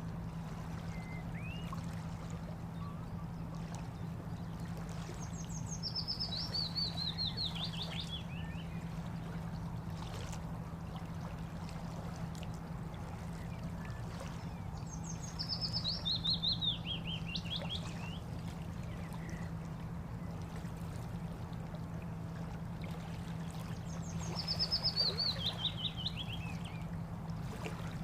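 Water flowing steadily along a bank, with a steady low hum underneath. A songbird sings three times, each song a quick run of notes falling in pitch over about two seconds, repeated roughly every nine seconds.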